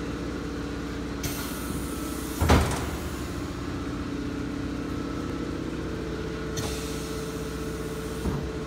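Vacuum forming machine running with a steady motor hum, with two spells of hiss and a loud clunk about two and a half seconds in, and a lighter knock near the end.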